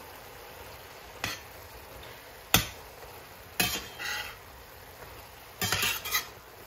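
Slotted spatula stirring spinach in a stainless steel skillet, striking and scraping the pan in a few sharp clinks, the loudest about two and a half seconds in, with a cluster near the end. A low steady sizzle from the frying greens runs underneath.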